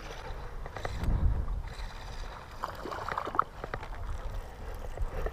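Wind and handling noise rumbling on a head-worn camera's microphone, loudest about a second in, with a few light clicks from a spinning reel as the rod is cast out.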